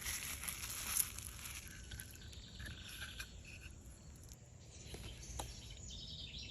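Faint outdoor ambience with birds chirping in short calls, loudest near the end.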